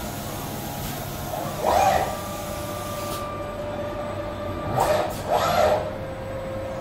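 Fanuc industrial robot arm with a tool-changer system running through its motions: steady machine whine that comes and goes as the arm moves, with three short, loud surges, one about two seconds in and two close together about five seconds in, over a constant hall hum.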